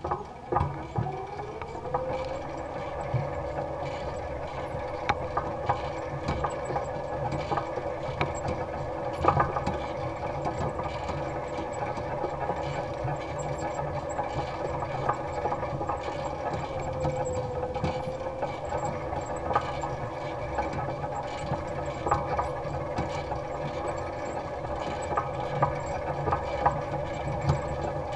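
Electric drive motor of an electric-converted Allis-Chalmers Model G tractor whining up to speed over about two seconds, then running with a steady whine. Irregular rattles and knocks from the tractor and its basket weeder sound over a low rumble, and the pitch dips briefly about two-thirds of the way through.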